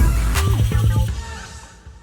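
Background music with a heavy bass beat, fading out over the second half.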